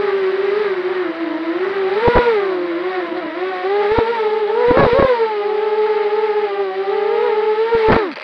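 Brushless motors and propellers of a 250-size racing quadcopter whining, heard from its onboard camera, the pitch wavering with throttle and swooping up in quick throttle blips about two seconds in, around five seconds and near the end. The whine stops abruptly as the quad goes down into the grass.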